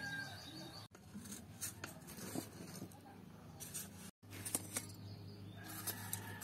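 Faint handling sounds: light clicks and rustles, then after a brief dropout metal tongs clicking against a cooking pot as steamed binaki are lifted out, over a low steady hum.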